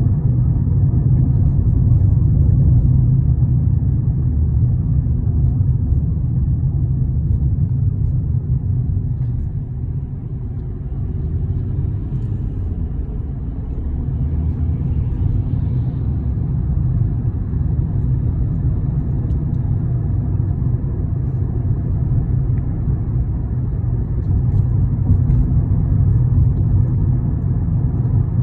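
Steady low rumble of a moving road vehicle, dipping slightly about ten seconds in.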